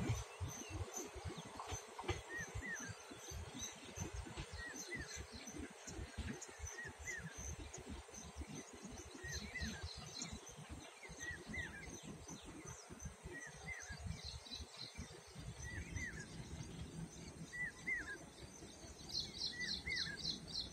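Birds chirping, one repeating a short hooked call every second or two, with a quick run of high chirps near the end. Under them runs a low, uneven rumble that stops about three-quarters of the way through.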